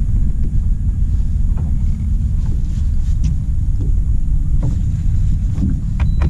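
Wind buffeting the microphone out on open water, a steady low rumble, with a few faint ticks over it.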